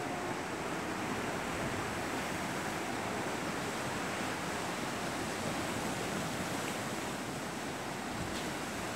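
Ocean surf: a steady, even rush of waves.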